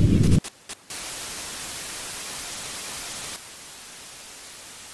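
A loud low rumble cuts off sharply less than half a second in, with a couple of stuttering dropouts like a glitching recording. Then comes a steady hiss of television static, which drops to a quieter hiss about three and a half seconds in.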